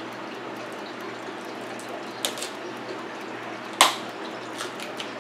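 King crab leg shell cracked apart by hand: a short crackle a little before halfway, then one sharp, loud snap about three quarters in, followed by a few lighter crackles as shell pieces are pulled off, over a steady background hiss.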